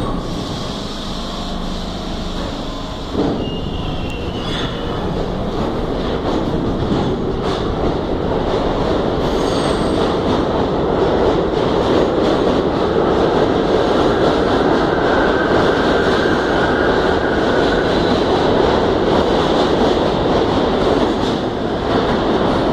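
R32 subway train pulling out of the station, its traction motors howling as it speeds up, with wheels squealing and cars rattling past. There is a thump about three seconds in, then the sound grows steadily louder.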